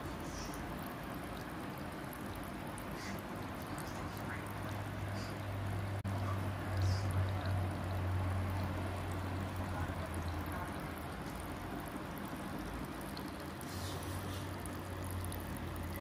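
Water from a tabletop fountain's bamboo spout trickling and splashing onto a stone in its basin, over a steady low hum.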